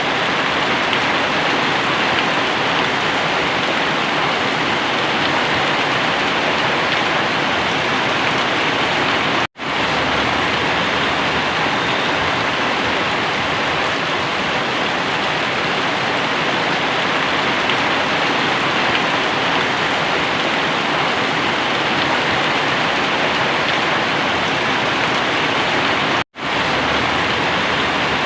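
Very heavy rain pouring down in a steady, dense rush, interrupted twice by a split-second dropout to silence.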